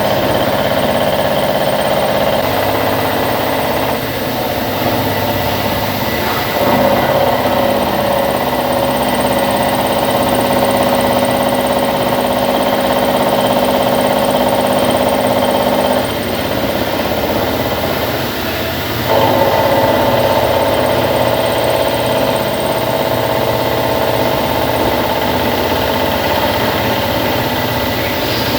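Hitachi Seiki VM50 CNC milling machine cutting a steel mold with a 35 mm cutter at 1000 rpm, a steady loud cutting tone. The tone drops away about 4 seconds and 16 seconds in and comes back a few seconds later, as the cutter leaves and re-enters the cut.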